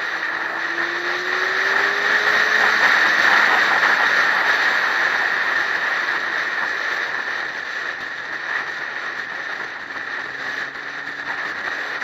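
Wind rushing over a motorcycle-mounted camera at road speed. A motorcycle engine note rises in pitch over the first few seconds as it accelerates.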